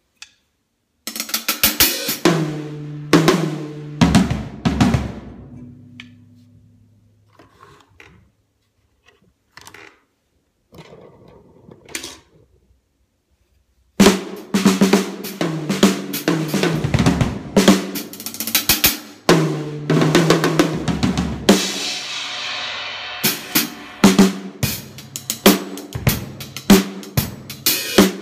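Drum kit played through a 'phat' sound template: a burst of snare and tom hits that ring out, a few scattered strokes and a short silence, then about halfway through a steady groove of snare, bass drum, hi-hat and cymbals, with a cymbal wash a little later.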